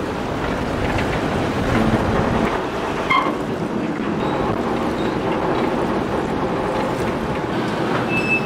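Steady low drone of ship engines from a tugboat and a departing container ship, mixed with wind buffeting the microphone. A brief faint high tone sounds about three seconds in.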